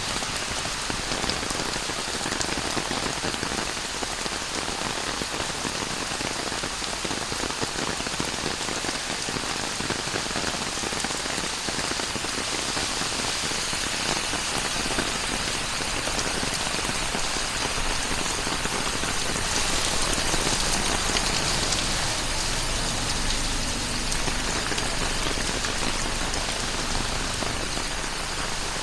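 Very heavy tropical rain pouring down, a dense steady hiss of drops hitting surfaces, swelling slightly about two-thirds of the way in.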